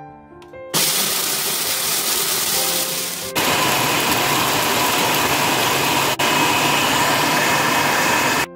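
Food processor motor and blade chopping green peas and corn kernels, starting about a second in and running loudly, broken twice by very brief gaps. Soft piano music plays just before it starts.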